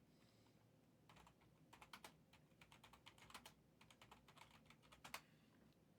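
Faint typing on a computer keyboard: an irregular run of keystrokes starting about a second in, ending with one harder keystroke. It is the sound of someone typing a search to look up a price.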